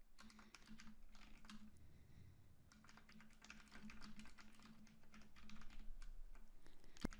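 Faint typing on a computer keyboard: quick runs of keystrokes with a short lull partway through, and one sharper click near the end.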